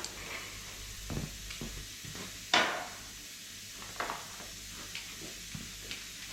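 Scattered knocks, clanks and scrapes as farrowing-pen fittings are handled and pulled loose, with one louder knock about two and a half seconds in.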